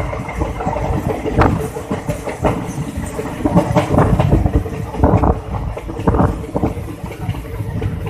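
Passenger train coach running along the track, heard from an open window: a constant rumble from the wheels, with irregular knocks and rattles from the wheels and carriage.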